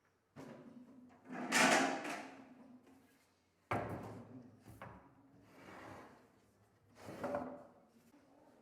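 Timber and tools being handled on a workbench: a handful of separate knocks and scrapes, the longest a sliding scrape about a second and a half in and the sharpest a knock just under four seconds in.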